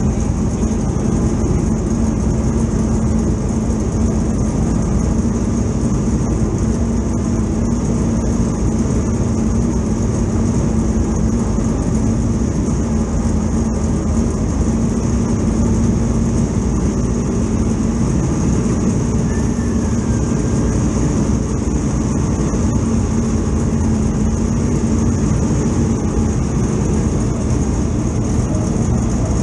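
Dirt Super Late Model's V8 engine running steadily at low speed, heard from inside the cockpit as the car rolls slowly, with a steady high whine above it.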